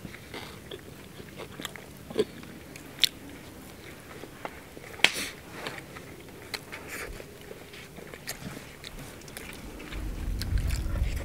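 Close-up eating sounds: biting into and chewing crispy-skinned roast chicken, with scattered crunches and sharp smacks. A low rumble comes in near the end.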